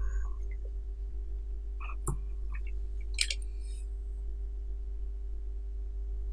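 A few soft computer-keyboard keystrokes over a steady low background hum, typing a short word between about two and three and a half seconds in.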